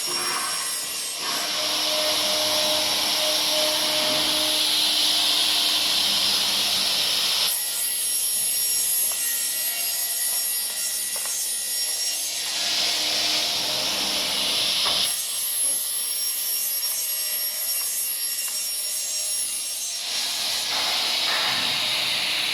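CNC router spindle cutting into a wooden door, giving a steady, hissing machining noise whose pitch and texture shift abruptly several times as the cut changes.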